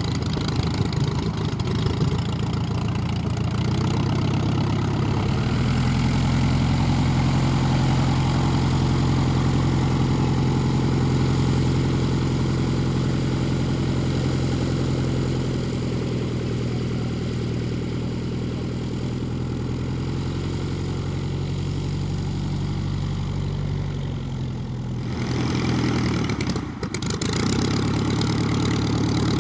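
Klemm 35D's piston engine running steadily at low power. It picks up a little about five seconds in, then drops and wavers briefly near the end before settling back.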